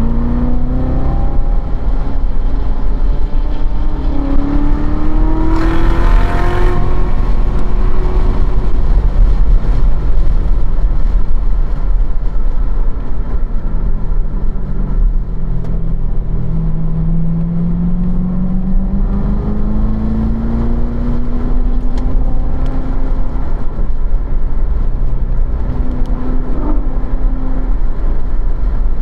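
2015 Corvette Z06's supercharged 6.2-litre V8 heard from inside the cabin at track speed, its note climbing under throttle several times with easier stretches between, over heavy wind and tyre rumble. A short rush of noise comes about six seconds in.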